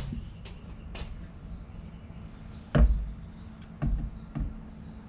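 A few light taps, then a heavier knock a little before the three-second mark and two more knocks about a second later, from handling in the workshop.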